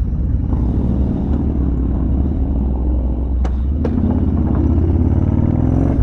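Yamaha Bolt's air-cooled V-twin engine running as the motorcycle rides off the ferry, its pitch rising over the last couple of seconds as it pulls away. Two short clicks about three and a half and four seconds in.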